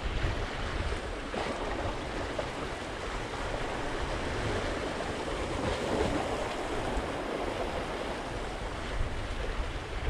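Sea waves washing and splashing among concrete tetrapod blocks, with wind buffeting the microphone in gusts.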